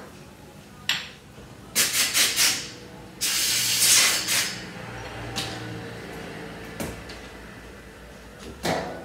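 Pressurised spray hissing: a few quick short puffs, then a longer, louder blast of about a second and a half that tails off. A couple of single knocks come before and after.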